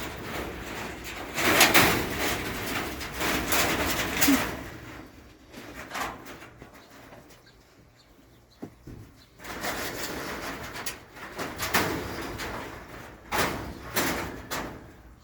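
Nile monitor lizard hissing in several long, rushing breaths, with quieter gaps between them: a defensive hiss from an agitated monitor.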